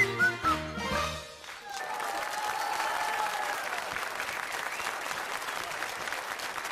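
The end of a song's accompaniment, with bass notes and whistle-like melody, cutting off about a second in, followed by steady audience applause.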